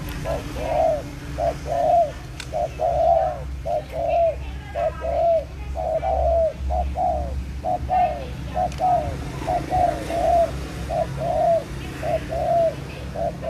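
A dove cooing in a long, fast run of short notes that rise and fall, about two a second. A steady low hum runs beneath.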